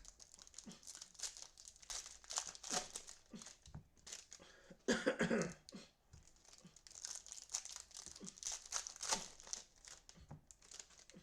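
Foil trading-card pack wrappers being torn open and crinkled by hand: a run of irregular crackles and rustles, with one louder burst of noise about five seconds in.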